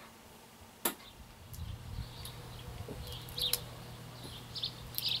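Small birds chirping in short, repeated calls through the second half, over a low steady outdoor rumble; a single sharp click about a second in.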